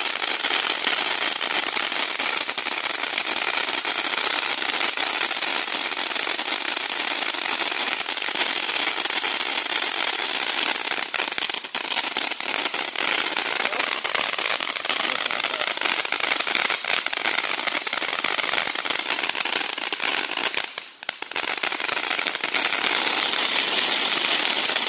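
A consumer firework crackling and popping densely and without a break for most of the time, with a short lull about three-quarters of the way through.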